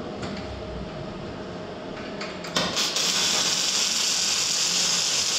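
Arc welding on the steel hull of a narrowboat shell, joining the side plate. About two and a half seconds in, the arc strikes with a sharp click and runs as a steady, loud hiss for about three seconds over faint workshop noise.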